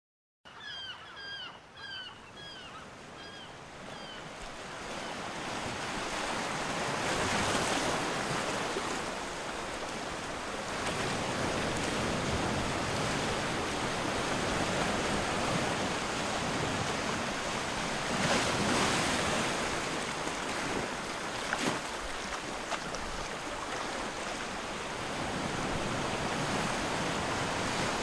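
Wind blowing on the microphone: a steady rushing noise that swells in gusts. It is joined by a few short chirps during the first few seconds.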